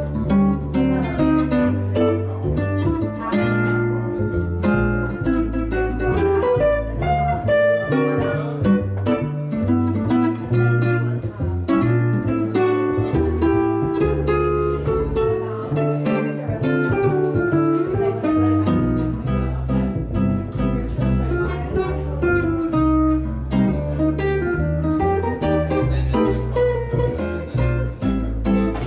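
Jazz duo playing an instrumental chorus: an archtop guitar plays chords and melody over a plucked Eminence upright bass keeping time in the low register.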